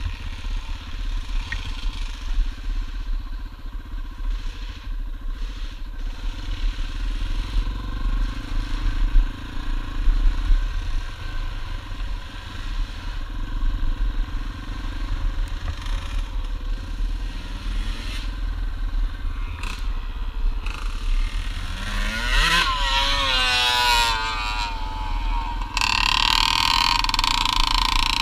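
Yamaha single-cylinder dirt bike engine running while riding, heard from on board with wind and clatter, its note rising and falling with the throttle. About three quarters of the way through, a higher, wavering engine whine swells.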